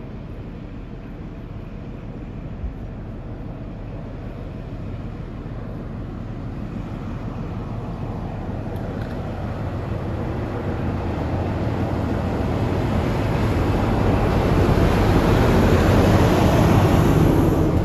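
Class 43 HST diesel power car hauling a train, approaching and passing close below. The engine and the wheels on the rails grow steadily louder, peaking near the end as the power car passes underneath.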